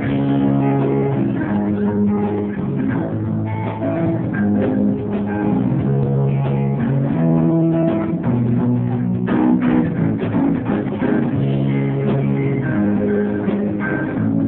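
A small band playing a jazzy song live, with guitar and bass guitar.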